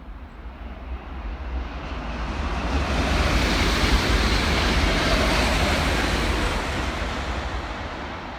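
A train passing at speed: a rushing noise with a deep rumble that swells to a peak about four seconds in, then fades away.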